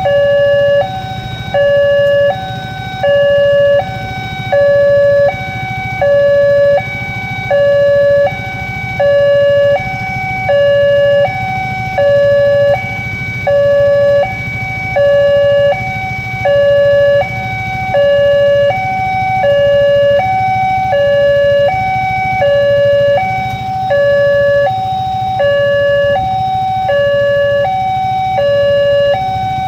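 Railway level-crossing electronic warning alarm sounding a steady two-tone chime, a lower and a higher note alternating about once a second, the signal that a train is approaching and the barriers are down. A low traffic rumble runs underneath.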